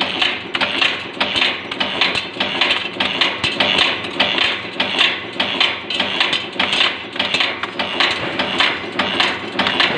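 One-die two-blow cold heading machine running a trial batch of stainless steel M5×52 screws: a fast, even clatter of metal heading strokes and knocks, at about 160–180 screws a minute.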